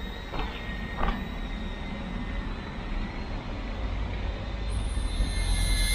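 Small quadcopter drone's motors and propellers running with a steady whine, over a low rumble.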